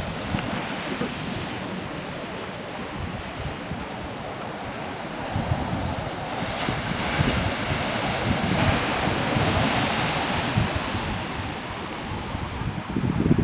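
Sea surf breaking and washing up a sandy beach, the wash swelling louder a couple of times midway, with wind rumbling on the microphone.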